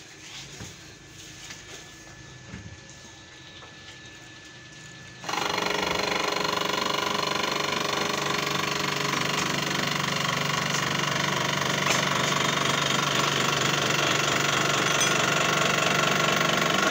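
Electric drive of a homemade hydraulic press built from a 12-tonne car jack starts abruptly about five seconds in and runs loud and steady as the ram presses down on two square steel tubes. Before it starts, only light handling clicks as the tubes are set in place.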